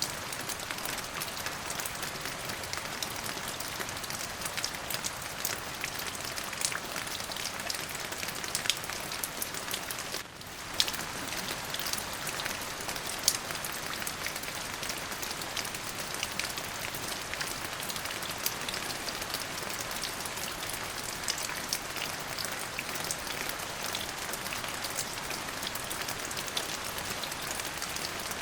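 Steady rain falling on a surface, an even hiss with many individual drops ticking sharply through it. The sound briefly dips out about ten seconds in, then comes back with one louder drop hit.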